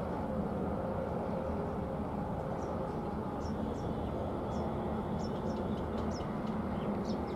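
Express passenger train running past on the rails: a steady rumble with the rattle of the coaches on the track.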